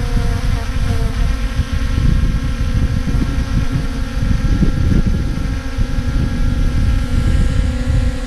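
Yuneec Mantis Q quadcopter hovering close by, its propellers giving a steady whine made of several held tones, over a heavy low rumble of rotor wash buffeting the microphone. It reads about 70 dB on a phone sound meter, peaking at 80.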